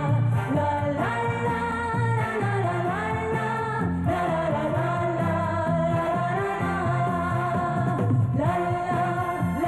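Romanian light pop song playing: a band accompaniment with a steady beat under a sung melody.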